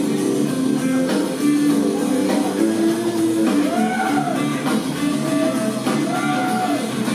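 Live rock trio playing: electric guitar, electric bass and drum kit. A few held notes bend up and back down after the middle.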